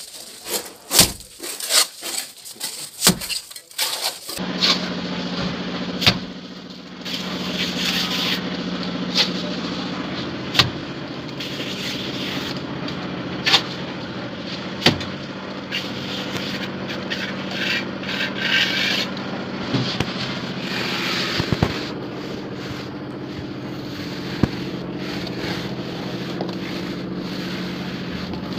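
Wet cement plaster being worked on an aerated concrete block wall. Sharp knocks come about twice a second for the first four seconds, then scraping as the plaster is spread and levelled with a wooden straightedge, over a steady motor hum.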